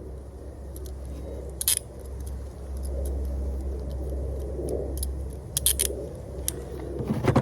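Metal clicks and clinks of steel handcuffs as a plastic flossing pick is worked in the keyhole: a few sharp clicks, one about two seconds in, a quick cluster later, and the loudest near the end, over a steady low rumble.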